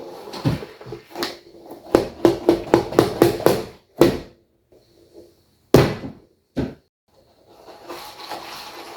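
Squishy toy ball being handled: a quick run of about eight taps, roughly four a second, then three single louder hits with short silent gaps between them, and a soft rustle near the end.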